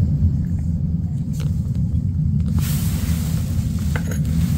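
Steady low rumble throughout, with a soft hiss coming in for the last two seconds or so and a few faint clicks.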